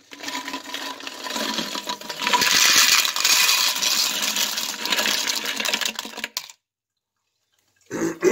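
Wet, moly-coated copper-jacketed rifle bullets pouring out of a plastic powder container into a plastic colander: a dense clatter of metal bullets clinking together for about six seconds, then cutting off suddenly.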